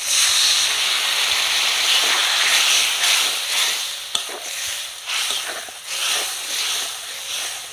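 Water poured into a hot metal kadai of frying spice paste, onion, potato and tomato sets off a sudden loud sizzle, added to keep the masala from burning. The sizzle dies down after about three and a half seconds, and a spatula clicks against the pan a few times as the masala is stirred.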